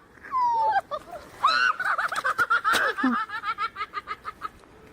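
A person laughing hard: a short falling cry, then a fast run of high-pitched 'ha' sounds that trails off.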